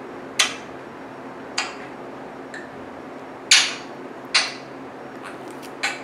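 Pet parrot making five sharp clicking smacks at uneven intervals, the fourth loudest, over a steady low room hum.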